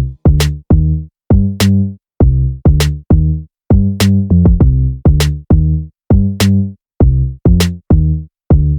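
Background music: an electronic drum-machine beat with heavy bass-drum hits and a deep bass note, about two beats a second, punctuated by sharp snare or hi-hat clicks.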